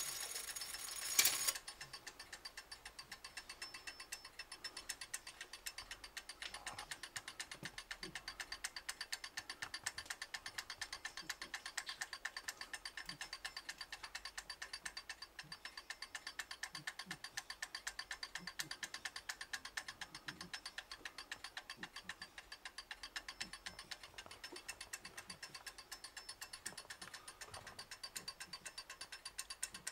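Antique 30-hour longcase clock movement running, its escapement giving a steady, rapid ticking. There is a louder mechanical clatter about a second in. The even beat is the sign of a movement in good running order.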